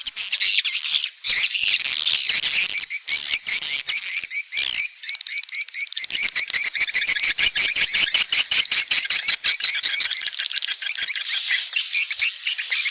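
Swiftlets twittering: dense, overlapping high chirps. About halfway through, the calls turn into a fast, even run of rapid repeated chirps.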